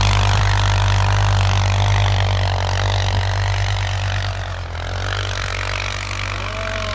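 CFMoto CForce 550 ATV's single-cylinder engine running steadily as the quad pulls away through deep snow. The sound fades slowly as it moves off.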